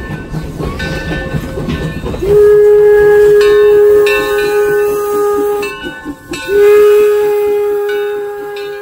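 Steam whistle of the Torch Lake, an 1873 Mason Bogie steam locomotive, blowing two long blasts on one steady pitch. The first starts a bit over two seconds in and lasts about three seconds; the second starts about six and a half seconds in. Steam hisses under and before the blasts.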